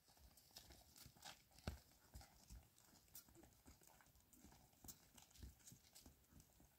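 Near silence broken by faint, irregular taps and clicks, the most distinct a single knock a little under two seconds in.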